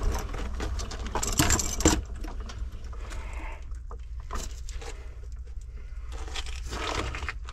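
Metal drain-cleaning cable rattling and clicking as it is handled at a cast-iron sewer cleanout, with a louder scraping rush about a second and a half in. A steady low hum runs underneath.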